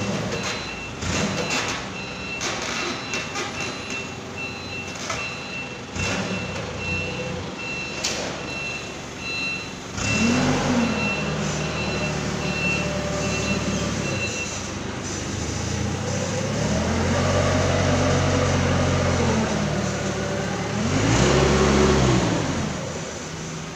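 Forklift's reversing alarm beeping repeatedly over its running engine, with a few clanks. The beeping stops a little past halfway, and the forklift engine revs up and down several times, the last rev near the end the loudest.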